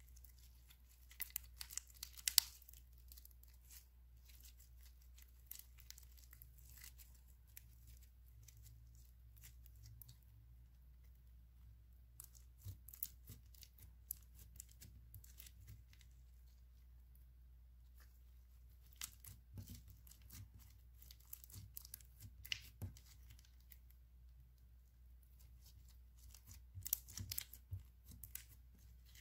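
Hands stretching, squeezing and pressing clear slime full of small beads: quiet sticky clicks and crackles in short clusters, the loudest about two seconds in and again near the end.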